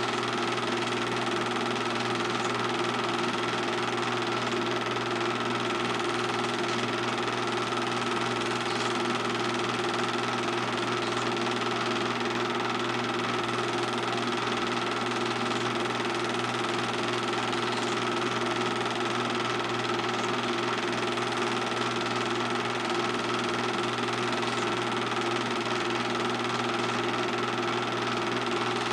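Film projector running: a steady, unchanging motor whir and mechanical clatter.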